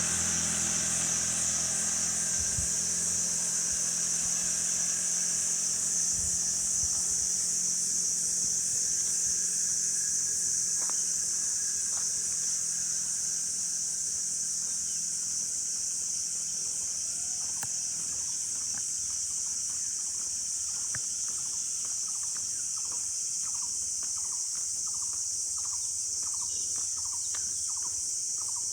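Steady, high-pitched insect chorus, crickets or cicadas, shrilling throughout. A vehicle engine hums low at first and fades away over the first several seconds; from about two-thirds of the way in a short call repeats about twice a second.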